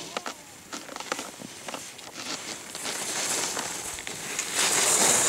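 Skis and a snowboard scraping over firm snow, with scattered small clicks and crackles over the first two seconds, then a hiss that grows louder as they come close.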